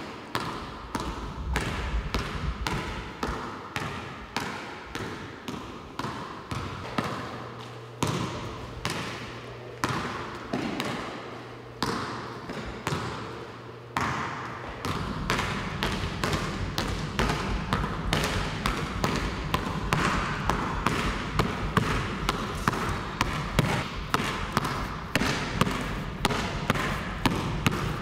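Basketball dribbled on a hardwood gym floor: a steady run of sharp bounces, about two to three a second, echoing in the large gym. A low hum sits under part of it.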